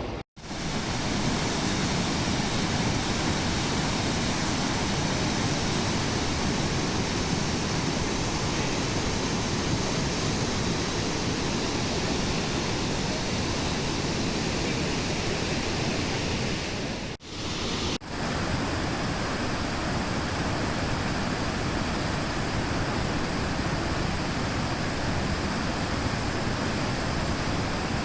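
Steady rush of falling or fast-flowing water, broken by a short dropout at the start and two brief gaps about two-thirds of the way through.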